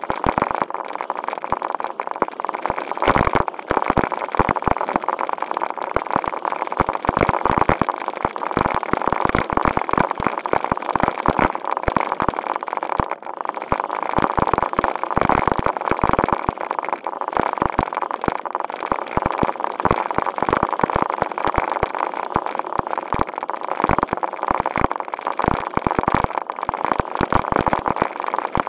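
JJRC Q76 4WD RC stunt car's small electric motors and gearboxes whirring steadily as it drives over rough concrete, with constant clicking and rattling, picked up by a camera mounted on the car itself.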